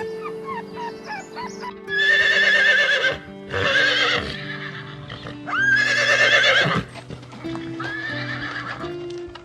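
Horse whinnying four times, each a loud wavering call of about a second, over steady background music. A run of short, high falling chirps comes before the first whinny.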